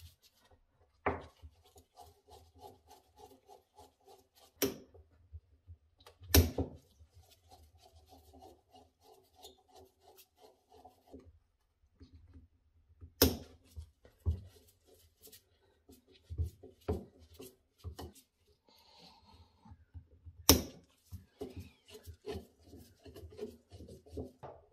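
Flat-blade screwdriver working the slotted screws of a Bosch K-Jetronic fuel distributor: scattered sharp metal clicks and knocks, the loudest about six seconds in. Between them come two stretches of a pulsing, rubbing creak as screws are turned.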